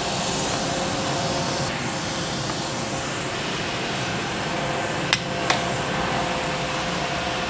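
Steady hiss with a faint steady hum, and about five seconds in two sharp metallic clinks from an overhead crane's steel hook and chain as they are pulled down.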